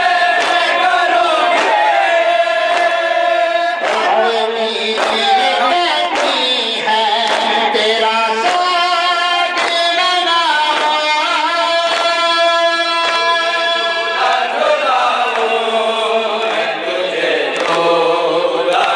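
A group of men chanting a noha, an Urdu mourning lament, in unison into microphones. Several voices sing the sustained, wavering melody together.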